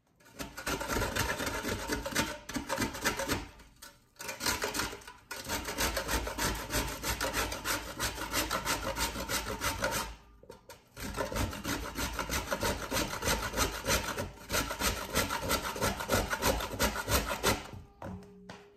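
Peeled cassava root grated by hand on a stainless steel box grater over a steel bowl: rapid, even rasping strokes, broken by a few short pauses and stopping just before the end.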